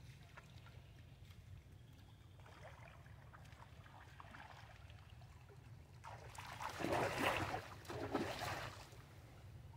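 Pool water splashing and sloshing as monkeys swim, with a louder stretch of splashing about six to eight and a half seconds in, peaking twice, over a steady low hum.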